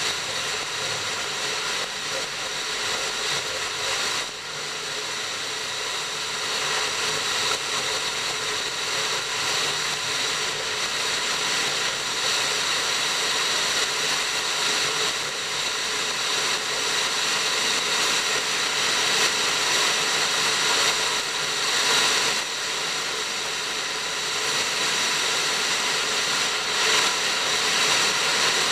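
Train running steadily along the track: a continuous rushing noise with a steady whine on top.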